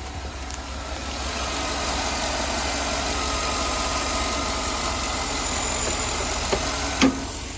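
Chevy/GMC 5.3-litre V8 idling steadily, running now that the failed engine control module has been replaced; the sound swells about a second in. A sharp knock near the end.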